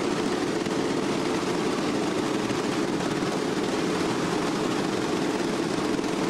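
A giant wooden noria waterwheel turning: a steady drone, from the wooden wheel on its axle, under the continuous rush of water spilling from it.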